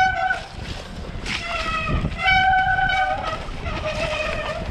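Mountain bike disc brakes honking in wet mud: a horn-like tone with overtones that sounds in separate stretches as the brakes are applied on the descent, the longest about a second long just past the middle, with a low rumble of tyres on dirt and wind beneath it.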